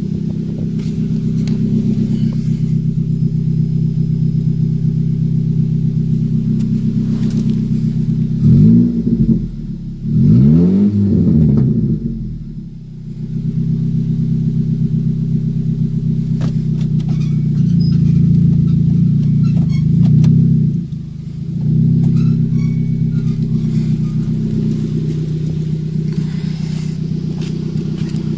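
A 2004 Nissan Sentra's 1.8-litre four-cylinder engine idling, being warmed up to operating temperature after a radiator replacement. It is revved up and back down a couple of times about a third of the way in, and again past the middle.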